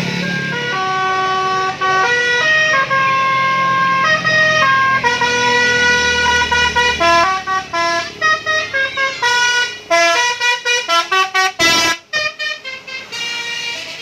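Bus telolet horn, a multi-tone musical air horn on a bus, playing a melody of held notes that step up and down. In the last few seconds it breaks into a run of quick, short toots.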